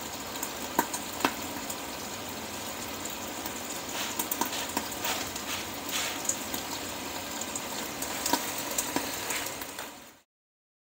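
Cooking on a gas stovetop: a steady sizzling hiss with scattered small crackles as a flour tortilla cooks on a hot steel comal next to a pot of bubbling meat. The sound cuts off abruptly near the end.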